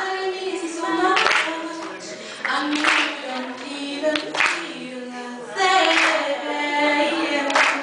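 A woman singing solo a cappella, her voice holding long notes with no instrumental backing, and a few sharp clicks in between.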